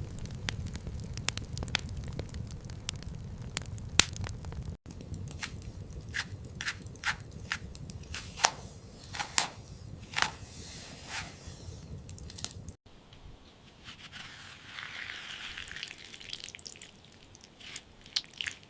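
Kitchen cooking sounds in three cut-together clips. First comes crackling with sharp clicks over a low rumble. About five seconds in there is a run of crunching snaps, and about thirteen seconds in a soft hiss swells and fades, with a few clicks near the end.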